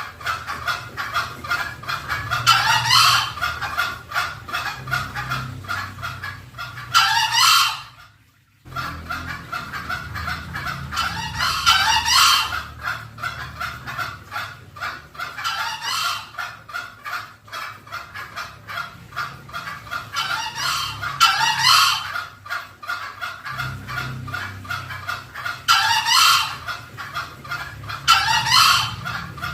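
Green junglefowl calling: short, shrill crows every few seconds over a steady run of rapid clucking notes, as used in a lure recording to draw wild junglefowl in. The calls cut out briefly about eight seconds in.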